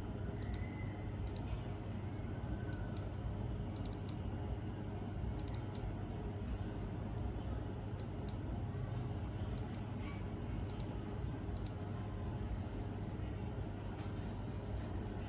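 A steady low hum with faint, irregular light clicks scattered over it, about a dozen in all.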